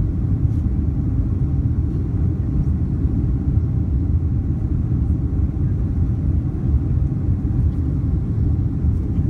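Steady low rumble inside the cabin of a Boeing 767-300 climbing out after takeoff: its General Electric CF6-80C2 turbofans at climb power and the rush of air over the fuselage, heard from a seat over the wing.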